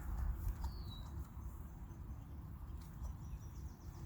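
Outdoor pond-side ambience: a steady low rumble of wind on the microphone, with one short falling bird chirp about a second in.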